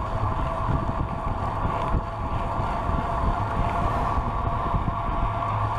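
Wind buffeting the microphone of a camera riding on a moving bicycle: a steady rumble with a constant hum running through it.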